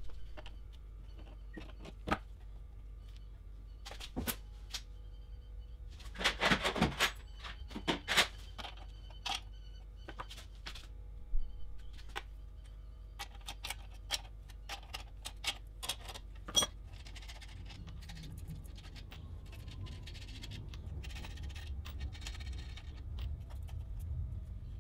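Scattered clicks, taps and knocks of metal and plastic parts as an oscilloscope's metal chassis is handled and taken apart by hand. A cluster of louder knocks comes about six to eight seconds in, and soft rustling handling noise follows in the later part.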